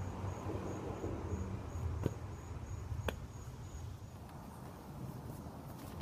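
An insect chirping in a thin, high, pulsing trill about three times a second, which stops about four seconds in, over a low steady outdoor rumble. Two sharp taps come about two and three seconds in.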